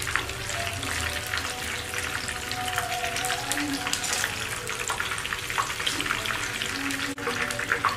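Battered tofu fritters deep-frying in hot oil, fried to golden brown: a steady sizzle with dense crackling.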